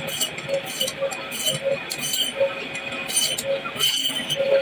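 Meat band saw running with a steady whine while its blade cuts through tuna loin and skin. Short scraping sounds come every half second or so, at uneven spacing, as the fish is pushed through the blade.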